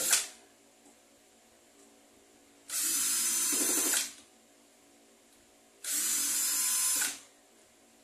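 Small cordless screwdriver running in two steady bursts of a little over a second each, about three seconds apart, backing screws out of an electric fan's motor housing.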